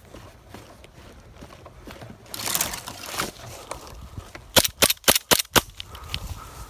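Airsoft gun firing a quick string of about six sharp shots within about a second, a little past the middle.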